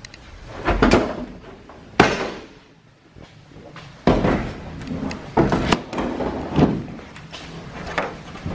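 A loose car hood being carried and handled, knocking and rattling as it is moved, with a sharp bang about two seconds in.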